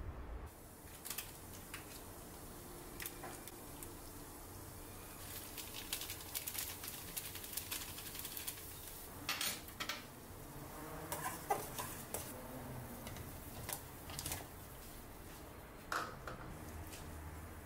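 Water boiling in a small pot, with scattered pops and crackles. A foil seasoning packet crinkles as it is shaken out over the water.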